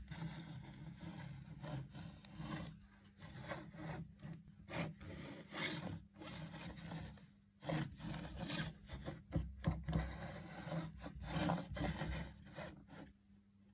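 Uneven rasping and rubbing strokes of hand work on a small metal part. The strokes vary in length and stop just before the end.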